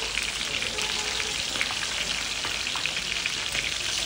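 Hilsa fish pieces frying in bubbling oil on a large flat griddle, a steady dense sizzle with scattered small ticks, as a metal spatula is moved through the oil and under the fish.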